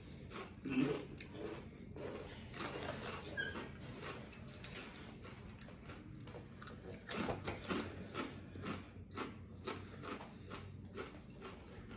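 Chewing and biting into food, with irregular crunches and mouth clicks, louder about a second in and again about seven seconds in.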